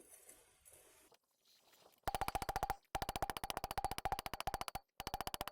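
Fast, evenly spaced metallic strikes with a ringing tone, hammer blows on a steel blade being forged, starting about two seconds in and broken by two abrupt gaps.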